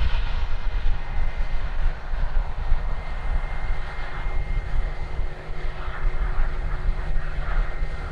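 Jet airliner's engines running, a steady low rumble with a faint, even whine above it.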